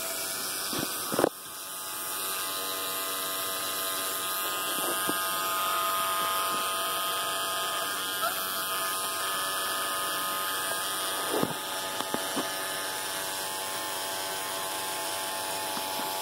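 Battery-powered child's electric toothbrush running with a steady buzz while a capuchin monkey holds it and presses it against a carpeted perch. A sharp knock about a second in, after which the buzz briefly drops and recovers, and a few lighter knocks later on as the brush bumps the perch.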